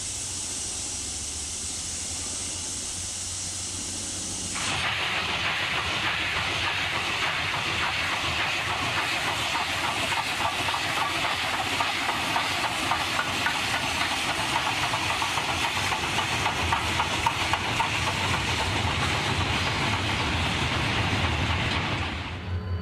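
Garratt-type steam locomotive starting a freight train, with a loud, steady hiss of steam from its cylinders. The hiss starts abruptly about five seconds in, after a fainter, higher hiss, and breaks off just before the end.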